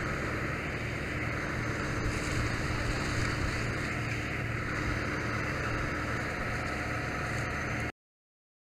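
Steady rushing of a fire hose stream spraying water, with an engine running low underneath. It cuts off suddenly near the end.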